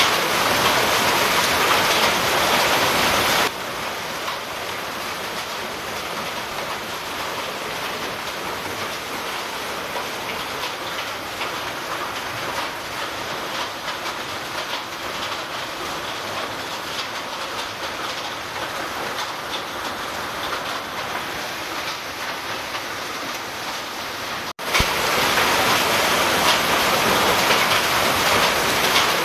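Hailstones and heavy rain pelting a wet, water-covered street in a dense, steady crackling patter. It is louder for the first few seconds, softer through the middle, and louder again after a brief cut-out near the end.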